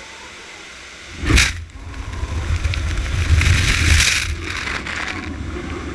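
Car wash spray jets coming on: a sudden loud blast about a second in, then a steady hiss of water spray with a low rumble, easing off near the end.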